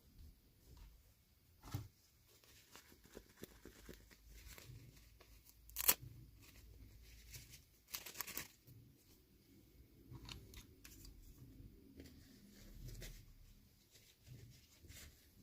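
Hands unpacking small plastic toy pieces from their packaging: scattered faint clicks, crinkles and rustles, with one sharp click about six seconds in and a quick cluster of clicks about two seconds later.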